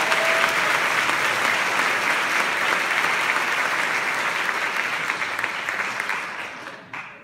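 Audience applauding, a dense run of hand claps that dies away near the end.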